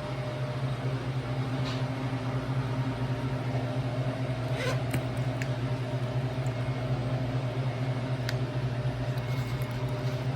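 Steady low machine hum, with a few faint clicks about halfway through and again near the end.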